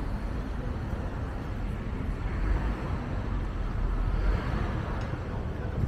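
Street traffic: a steady low rumble with one vehicle passing, swelling from about two seconds in and fading away near the end.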